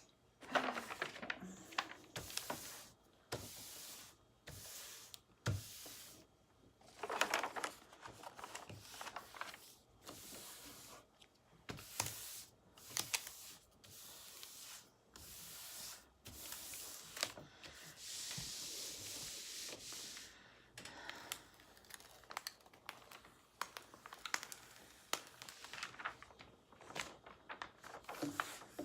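Plastic-covered diamond painting canvas crinkling and rustling as it is handled and smoothed down, in irregular bursts with a longer continuous rustle about two-thirds of the way through.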